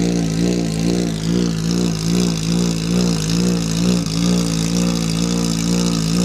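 Open-cockpit sports prototype race car's engine idling with a lumpy, uneven beat, about three or four pulses a second, as the car creeps forward.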